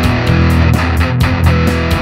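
ESP LTD M-II electric guitar played through a Blackstar HT Metal 5 amp, close-miked with a Shure SM57: a metal riff of low notes picked in a steady rhythm, about four strokes a second.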